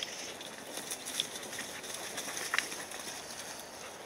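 Puppies' paws pattering along a muddy path through grass, with a few brief ticks.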